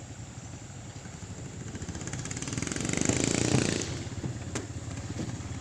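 A small engine running steadily, with a louder engine sound swelling up about three seconds in and fading away, like a motor passing close by.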